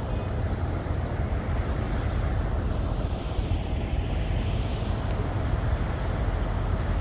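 Steady low rumble of idling truck engines, with general outdoor background noise.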